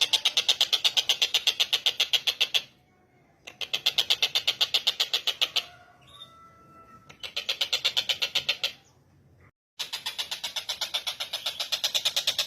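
Tengkek buto kingfisher calling: a fast, rattling series of high notes, about nine a second, in four bouts broken by short pauses.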